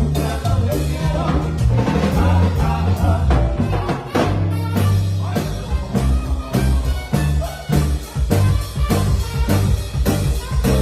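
Band playing a song live at a sound check: drum kit with a steady beat, a strong bass line and a singing voice over the top.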